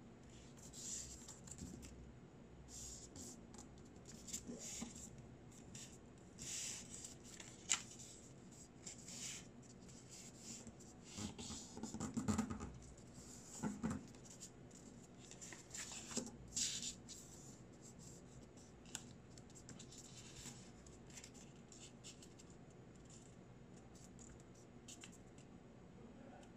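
Square origami paper being folded and creased by hand on a cutting mat: faint scratchy swipes and rustles as fingers press and run along the folds. They come in short bursts, busiest in the middle and thinning out near the end.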